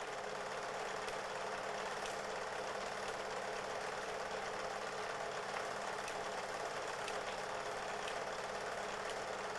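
Super 8 film projector running steadily: an even mechanical whirr with a constant low hum beneath it.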